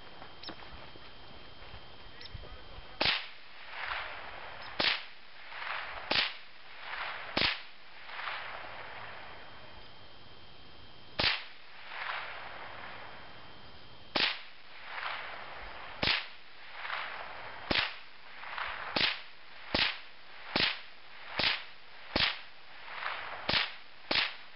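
A Remington Nylon 66 semi-automatic .22 rifle firing a string of about fifteen single shots, each a sharp crack followed by a brief echo. The shots come a second or two apart at first, with a pause of about four seconds in the middle, then faster, under a second apart, near the end.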